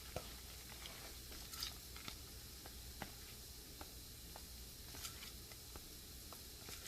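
Faint stirring of a thick, creamy casserole mixture: soft squishing with scattered light clicks of the utensil against the dish.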